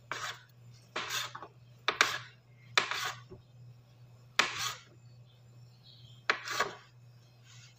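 A kitchen knife cutting down onto a cutting board, six strokes at irregular intervals of about a second, each a sharp hit followed by a short scraping slice.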